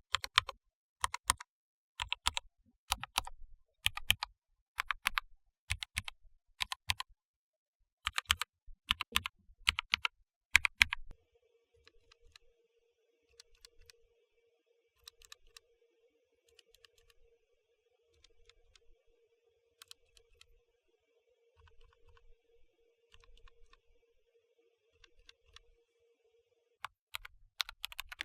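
Mechanical keyboard keys on Gateron Cap Teal switches being pressed in quick clusters of sharp clacks. After about eleven seconds the presses turn much fainter and sparser over a steady low hum, and louder key clacking resumes near the end.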